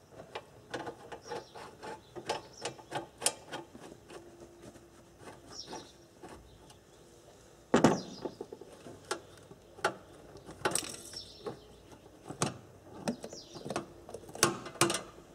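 Hand-work clicks and knocks as a cone air filter's clamp is undone and the filter pulled off a car's intake pipe. A quick run of sharp clicks, several a second, comes first, then a louder knock about eight seconds in and scattered clicks and knocks.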